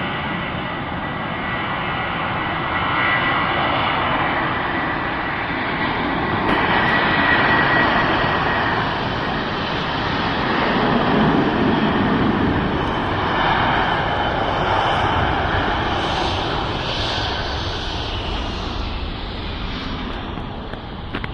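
Jet engines of an Airbus A330 airliner at takeoff thrust: a loud, steady rushing noise with a thin high whine. It swells and eases a few times and begins to fade near the end.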